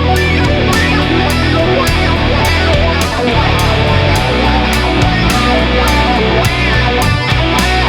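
Electric guitar with a heavy, distorted tone from a Line 6 Firehawk FX multi-effects patch, played over a steady drum beat.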